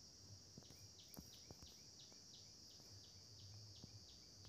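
Near silence: faint background hiss with faint short chirps repeating about three times a second from under a second in.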